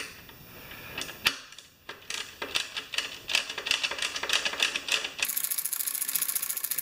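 Hand socket ratchet clicking rapidly as a bolt is run in, after a couple of single clicks, and getting faster about five seconds in.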